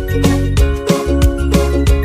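Upbeat music with a steady drumbeat and bass.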